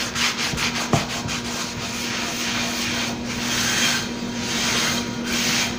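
Dry cloth towel scrubbing coarse kosher salt around the bottom of a cast iron skillet: a steady gritty scraping that swells and eases with the back-and-forth strokes. The salt is scouring residue off the seasoned pan.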